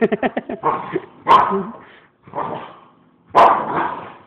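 A dog barking in agitated bursts: a quick string of short yaps at the start, then several louder barks about a second apart. It is the dog's fit at a person's fake sneeze.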